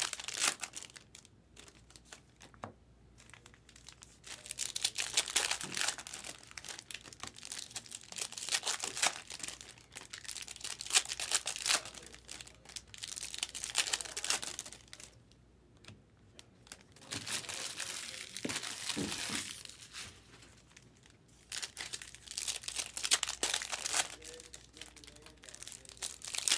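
Foil wrappers of Topps Chrome trading-card packs being torn open and crinkled by hand, in bursts of crackling every few seconds with quieter handling between.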